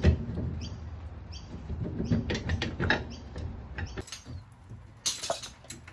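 Metal clinks, knocks and scrapes as a caravan brake drum is worked onto its axle hub, with a sharper knock about five seconds in.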